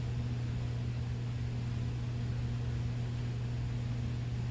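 Steady low hum with an even hiss underneath: constant background noise, like a fan or electrical hum, with no other event.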